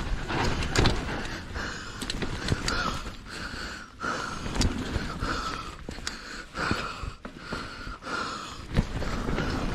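Mountain bike ridden over a rough, wet trail: knocks and rattles from the bike over roots and stones, with a hoarse hiss that comes back about once or twice a second.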